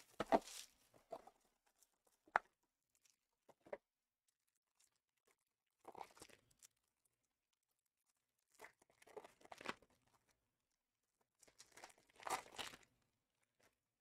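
Faint, scattered rustling, crinkling and light clicks of trading-card boxes and their packaging being handled and opened, with a sharp click about two seconds in and a louder burst of rustling near the end.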